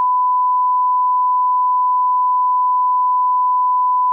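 Censor beep: one steady, unbroken, single-pitched tone laid over speech in editing to hide words not yet meant to be heard.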